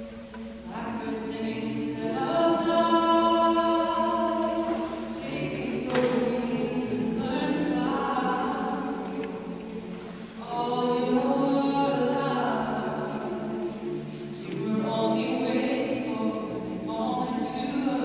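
Mixed choir singing a cappella: held chords of men's and women's voices in long phrases that swell and fade, with breaks about ten seconds in and again near fifteen seconds.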